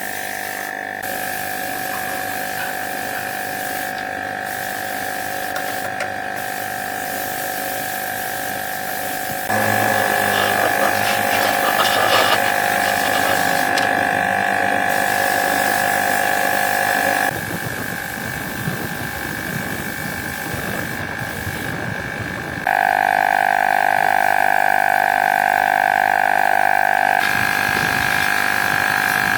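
A small electric power tool's motor whining steadily, in several stretches that switch abruptly in pitch and loudness.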